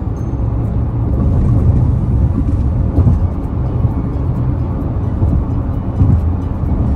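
A car being driven along a road: a steady low rumble of road and engine noise.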